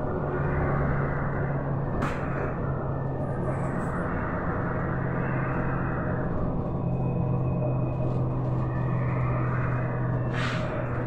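Cabin noise of a Volgabus-5270.E0 electric bus driving: a steady low hum with road and tyre noise, and short hisses about two seconds in and again near the end.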